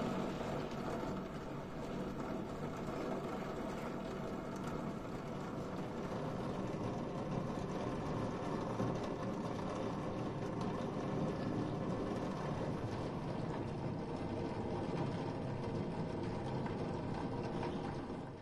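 Rain pouring down steadily on garden plants and leaves, an even hiss that fades out near the end.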